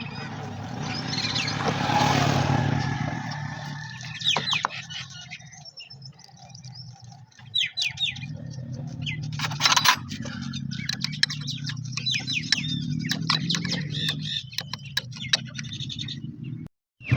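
Birds chirping and calling over and over, with a steady low running sound underneath.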